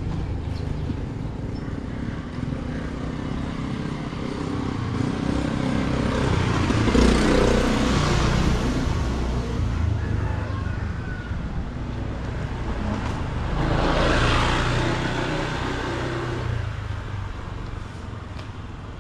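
Motor scooter engine running steadily at low speed along a narrow lane. The hiss of wind and road noise swells twice, about a third of the way in and again about three quarters of the way through.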